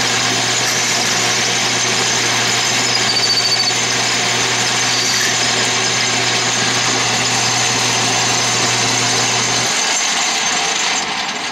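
Atlas lathe running, loud and rattly, as a hand-fed parting tool cuts off a 7/8-inch aluminum bar. A low hum under the rattle drops out about ten seconds in.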